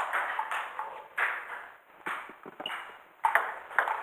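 Table tennis rally: plastic balls clicking off bats and tabletops in quick, irregular succession, each click ringing briefly in the hall.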